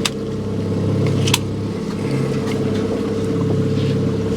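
Boat engine running steadily with a low, even hum, broken by two sharp knocks, one at the start and one about a second and a half in.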